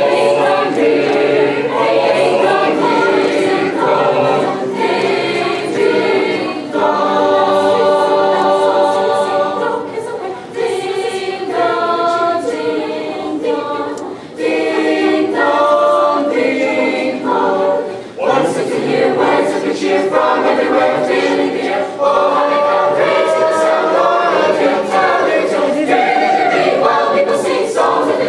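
Mixed school choir of boys and girls singing together, with several held chords.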